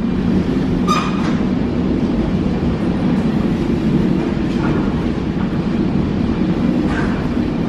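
Steady low mechanical drone with a faint hum in it, heard inside an airport jet bridge, with a short high chirp about a second in and a fainter one near the end.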